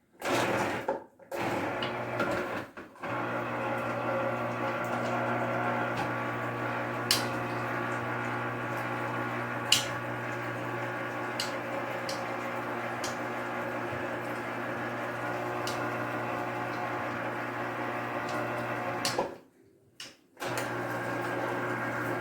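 Small electric citrus juicer's motor running with a steady hum as oranges are pressed onto it, cutting out briefly twice near the start, stopping about 19 seconds in and starting again a second later.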